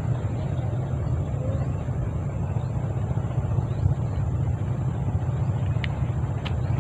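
A steady low rumble, with faint short high chirps above it and two sharp clicks near the end.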